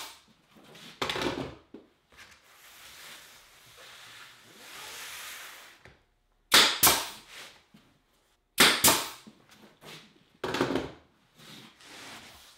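Pneumatic 18-gauge brad nailer firing nails into an MDF mat and plywood backing: three sharp cracks about two seconds apart, starting about six and a half seconds in, with weaker knocks after them. Before the shots, a soft knock and a faint even rustle.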